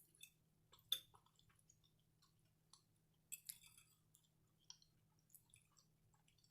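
Faint chewing with scattered small wet clicks and crunches of someone eating pierogi and cabbage. A faint steady low hum runs underneath.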